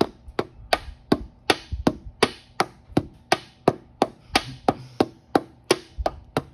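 Small ball-peen hammer tapping gasket sheet against the cast-iron edge of a manual transmission's top opening, cutting out a new top-cover gasket. The light strikes come in a steady rhythm of about three a second.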